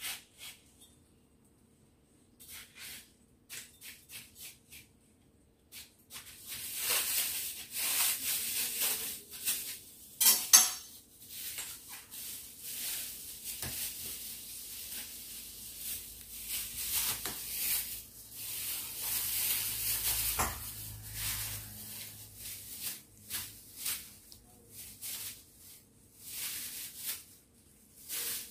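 Thin plastic bag rustling and crinkling as watermelon slices are packed into it, with scattered light knocks of rind against a wooden board; the sharpest knock comes about ten seconds in. The first few seconds hold only faint clicks.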